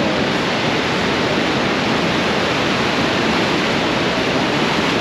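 Steady roar of the American Falls at Niagara, heard close up from a tour boat on the river below.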